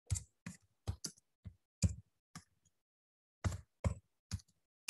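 Typing on a computer keyboard: about a dozen separate keystrokes at an uneven pace, in two runs with a pause of about a second between them.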